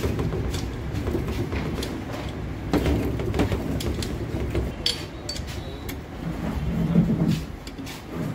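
Hand wrench on the connecting-rod nuts of a Hyundai Verna engine block: scattered sharp metal clicks and knocks as the nuts are tightened, over a steady low workshop rumble.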